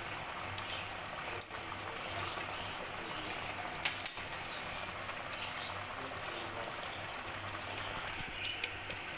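Mutton, tomatoes and onion in water boiling hard in an open aluminium pressure cooker over a gas flame turned up full: steady bubbling, with one sharp click a little under four seconds in.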